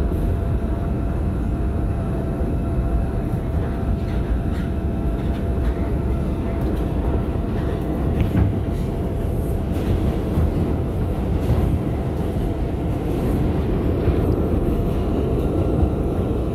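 Bombardier R142 subway car running along the line: a steady rumble of wheels on the rails with a steady whine above it and a few faint clicks.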